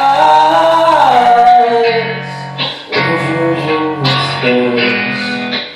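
A male singer holds the end of a sung line for about a second and a half over guitar, then the guitar carries on alone, strumming chords with short breaks between phrases.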